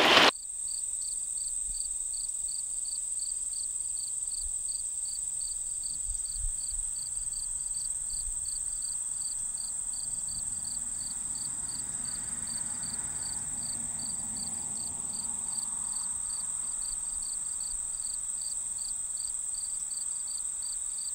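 Insect chorus of crickets: one steady, high-pitched trill, with another insect chirping in an even, regular pulse underneath.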